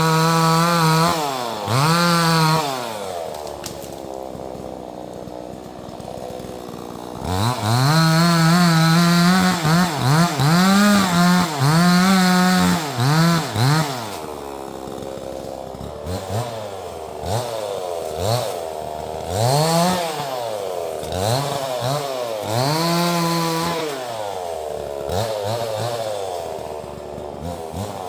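Neotec 68cc two-stroke chainsaw revved hard in repeated bursts, its pitch sagging and recovering under load as it cuts wood. It drops to idle for a few seconds soon after the start, then runs at full throttle for several seconds, followed by shorter blips of throttle.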